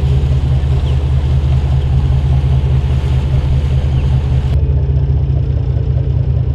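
Steady, loud low engine rumble of a small boat underway, heard from on board, with a pulsing low throb and a hiss over it; the hiss thins out about four and a half seconds in.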